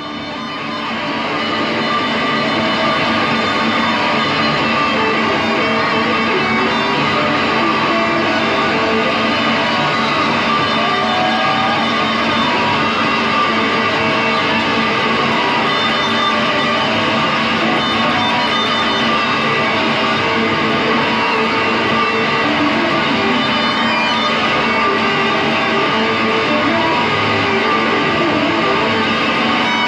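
Two electric guitars played through effects pedals and amplifiers in a free noise improvisation: a dense, loud wash of many held, droning tones that swells up over the first couple of seconds and then holds steady.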